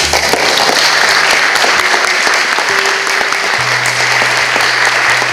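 Audience applauding steadily, with soft background music playing underneath.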